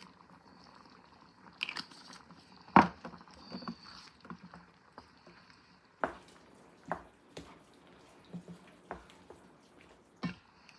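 A wooden spoon stirring a thick, creamy chicken pot pie filling in a skillet: wet stirring with scattered knocks of the spoon against the pan. The loudest knock comes about three seconds in.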